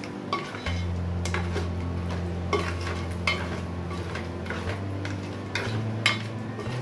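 A ladle stirring crab pieces in thick masala gravy in an aluminium pan, with irregular knocks and scrapes against the pan, over a faint sizzle.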